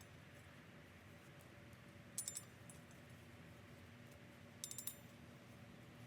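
Two short bursts of quick metallic clicks, about two seconds in and just before five seconds, against near silence: a ratchet turning the Torx bolts that hold a motorcycle brake disc to the wheel.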